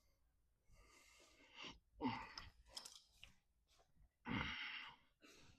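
A man's breathing: several short, heavy exhales about a second apart, with a few faint clicks in between.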